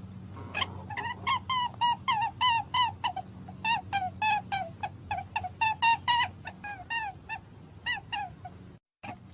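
An animal calling in a rapid series of short, high chirps, about three a second, over a steady low hum. The calls stop for a moment near the end.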